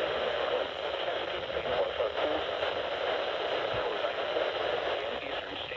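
Weather radio receiver playing a weak, noisy NOAA Weather Radio signal: a steady hiss of static with a faint voice barely showing beneath it.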